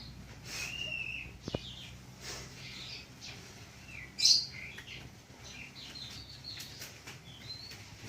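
Birds chirping in short, scattered calls, with one louder, sharper note a little after four seconds in.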